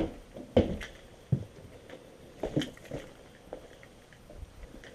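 Irregular footsteps and light knocks, a few short thumps spaced about a second apart.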